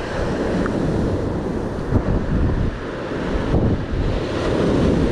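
Wind buffeting the microphone over breaking ocean surf.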